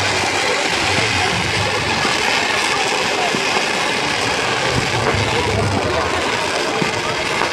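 Ground-launched consumer fireworks sending streams of sparks skyward, a continuous dense hiss and crackle.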